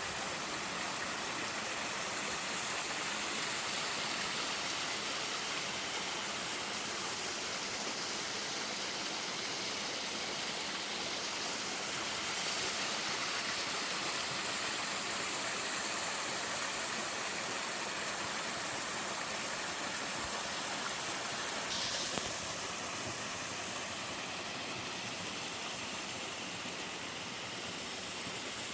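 Twin small waterfalls in a mountain stream, water pouring and splashing in a steady rushing hiss. A brief click about three-quarters of the way through, after which the hiss is slightly duller.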